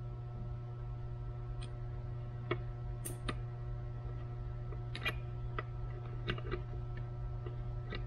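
Small, irregular metallic clicks and ticks of needle-nose pliers and a piston wrist-pin circlip being fitted through the service hole of a Subaru EJ25 block, over a steady low hum.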